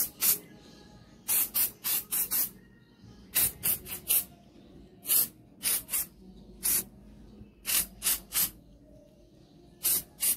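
Aerosol mosquito-spray can hissing in short bursts: quick puffs, often two to four in a row, repeated about every second or two.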